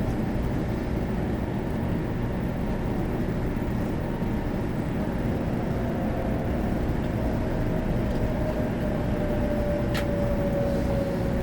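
Cabin noise inside a 500 series Shinkansen running on the line: a steady low rumble and hiss. In the second half a faint whine slowly falls in pitch, and a single sharp click comes near the end.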